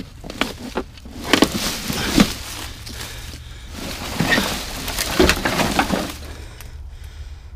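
Dry fallen leaves and twigs crunching and rustling as someone moves about in the leaf litter and handles a car fender lying in it, with several sharp cracks from twigs.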